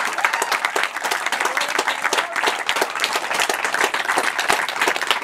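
Crowd of spectators applauding: many hands clapping at once, steady and dense, in response to the players being congratulated.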